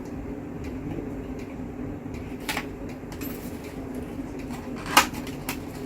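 Sharp plastic clicks of a RAM stick being pressed into a motherboard memory slot: a faint click about two and a half seconds in, then a loud one about five seconds in as the slot's latch snaps shut, over a steady low background hum.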